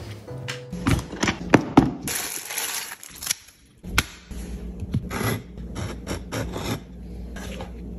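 Sharp clicks and clatter, then after a brief near-silent gap a single knock and a run of short scraping strokes: a knife cutting a flour tortilla around an upturned bowl on a wooden cutting board.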